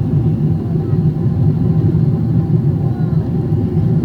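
Steady low rumble in the cabin of a Boeing 777-300ER climbing after takeoff: its GE90 engines at climb thrust, with the rush of air along the fuselage.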